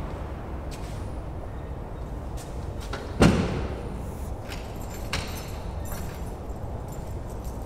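A door slams shut once about three seconds in, a sharp knock with a short echo, over a steady outdoor background hum. A few lighter clicks and knocks come before and after it.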